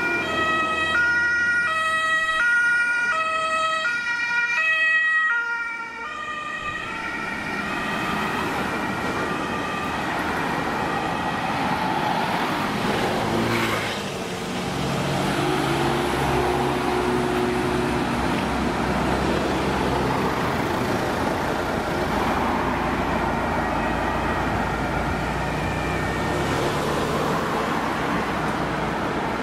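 Two-tone German emergency siren (Martinshorn) on an ambulance, alternating between a high and a low tone, that fades out about six seconds in. After that comes steady road traffic noise and the engines of emergency vehicles driving past.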